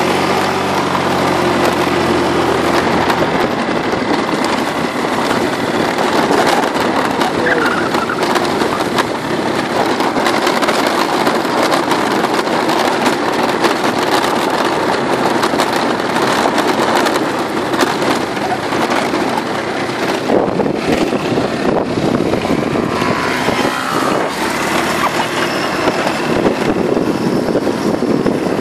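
Small moped engine running on the move over a gravel dirt track, mixed with a steady, loud rushing noise from the ride.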